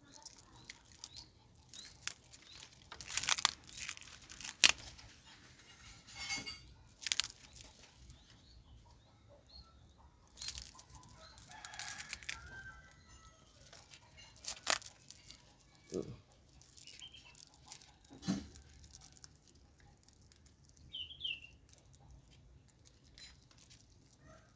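Clear PE plastic wrap round a branch's air layer crinkling and crackling in irregular sharp snaps as hands handle it and pull it tight. A chicken is heard faintly in the background.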